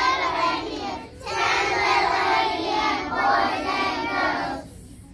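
A group of preschool children singing a song together, with a short break for breath about a second in. The singing stops shortly before the end.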